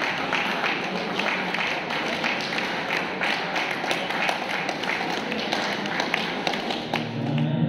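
Scattered hand clapping, a few claps a second, over the hubbub of a crowd in a hall. Music starts near the end.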